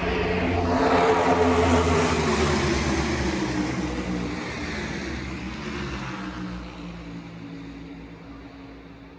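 A tightly bunched pack of NASCAR Cup Series stock cars with V8 engines passing at full race speed. It is loudest about a second or two in, then the engine pitch falls and the sound fades steadily as the field pulls away.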